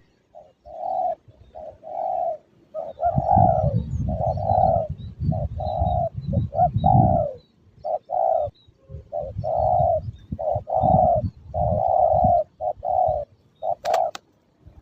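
Spotted doves cooing, a long run of short repeated coos, with wind rumbling on the microphone underneath. A sharp click near the end.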